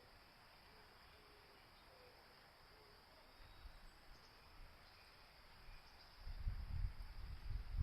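Insects chirring in a steady high drone, with a few soft, low, hooting bird calls in the first three seconds. From about six seconds in, gusts of wind buffet the microphone in low rumbles.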